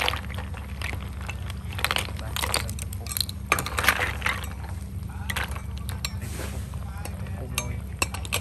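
Snail shells clinking and knocking against a metal ladle and pan while a pan of snails in chili sauce boils, with bubbling and a steady low hum underneath. The clinks come in clusters, most about two seconds in and around four seconds in.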